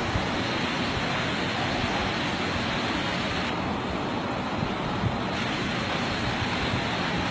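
Steady rushing noise of a heavy rainstorm over deep floodwater, an even hiss with an irregular low rumble underneath.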